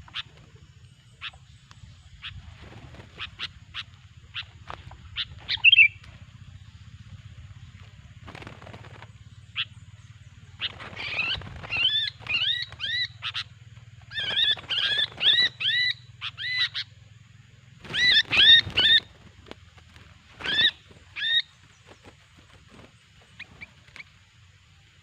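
Sooty-headed bulbul calling: scattered short chirps, then from about halfway through, several bursts of quick, bubbly whistled notes, each group lasting a second or two. A faint low hum runs underneath.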